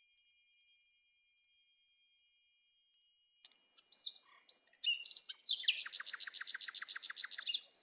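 Silence for about three and a half seconds, then a cartoon bird's high chirps and a quick trill of about ten notes a second.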